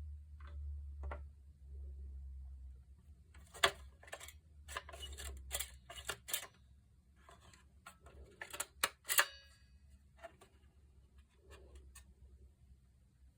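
A run of sharp clicks and taps from hard plastic parts of a power-tool battery charger being handled, the loudest about a third of the way in and again past the middle, over a low hum in the first few seconds.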